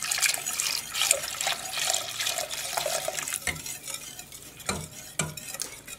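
Wire whisk stirring milk into a butter-and-flour roux in a stainless steel pot, its wires scraping and clicking irregularly against the pot. A thin stream of milk pours in at the start.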